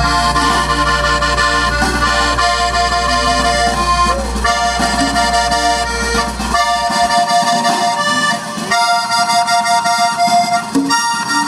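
Live band playing an accordion-led instrumental, amplified through a PA: the accordion carries the melody over guitar, bass guitar and drums. A low steady hum under the music stops about seven seconds in.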